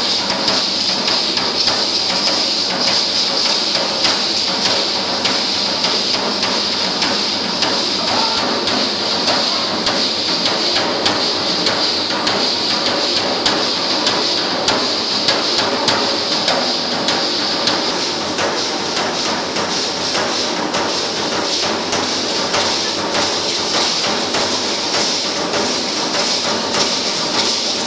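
Matachines dance percussion: many hand rattles shaken together in a steady rhythm, with dense stamping and beating strokes under it.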